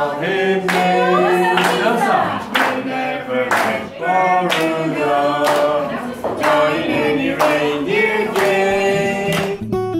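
A family group of adults and children singing together, clapping in time about once a second.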